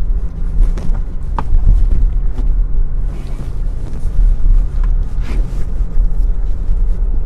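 Steady low rumble of a moving car heard from inside the cabin, with a few light clicks and knocks.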